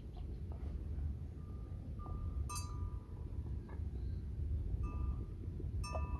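Small bells on the water buffaloes' neck collars clinking and ringing in a few short, scattered rings, over a low steady rumble.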